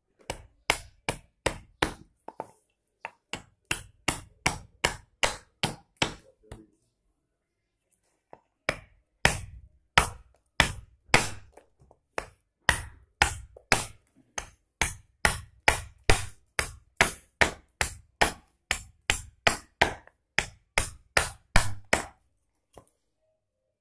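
Short-handled keser (adze) chopping a boxwood spoon blank held upright on a log stump. Quick, sharp strikes come about two or three a second, pausing for about two seconds a third of the way in, as the spoon blank is roughed out.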